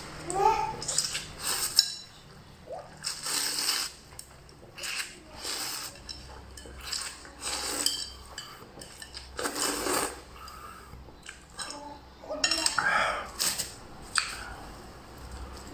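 Buldak fire-chicken instant noodles being slurped and chewed in quick, irregular bursts, with utensils clinking against the bowl.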